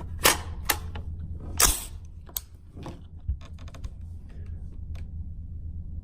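A series of sharp metallic clicks and knocks, then a quick run of smaller clicks about three seconds in, as a rifle and its magazine are handled.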